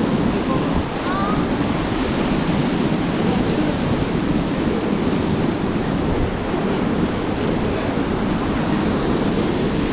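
Rushing whitewater of the River Beas, a steady churning rush around the raft, with wind buffeting the microphone.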